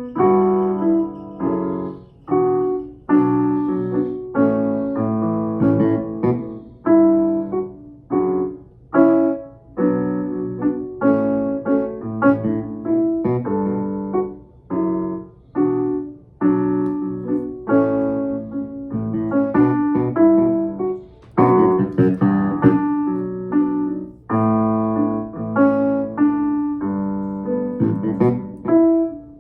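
Digital keyboard playing in a piano sound: a slow run of chords, each struck and left to ring, a new chord about every second.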